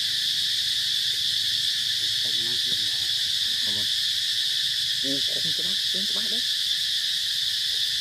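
Steady, high-pitched buzzing of an insect chorus, unbroken throughout. Faint distant voices rise under it from about two seconds in to past the middle.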